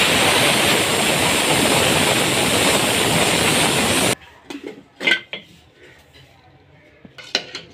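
Aluminium stovetop pressure cooker whistling: steam venting hard past its weight valve in a loud, steady hiss, the sign that the cooker is up to full pressure. The hiss cuts off about four seconds in, followed by a few light metal clinks and knocks.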